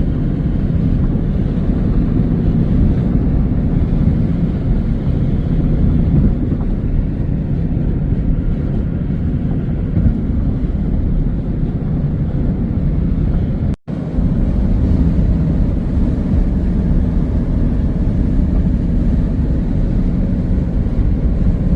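Steady low rumble of a car being driven: road and engine noise. It cuts out for a split second about fourteen seconds in.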